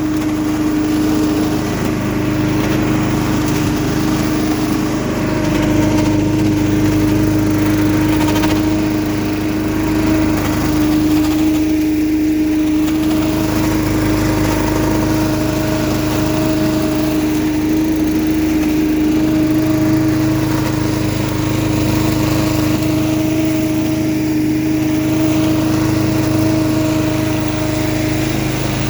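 Billy Goat LB50Q leaf vacuum's small gas engine running steadily at constant speed, with a steady hum and a faint higher tone that comes and goes.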